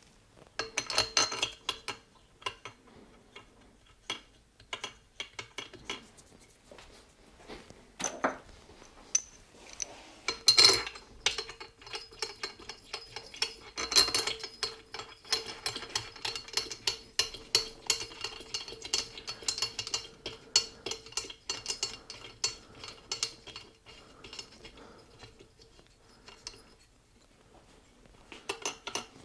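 Hand ratchet clicking in rapid runs and bursts, mixed with metallic clinks of a socket and tools against the engine, as the cylinder head bolts of a small engine are run down by hand.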